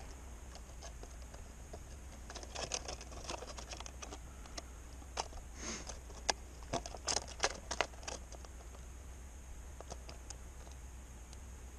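Thin plastic of an emptied 2-liter soda bottle crinkling and crackling as it is handled and turned over, in scattered bursts that are thickest in the middle of the stretch; the bottle has been torn open by a bullet.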